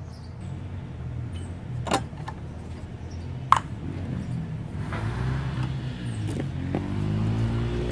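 A steady low engine hum runs throughout, with a few sharp metallic clicks of parts being handled, the loudest about three and a half seconds in. Near the end a rising whine comes in over the hum.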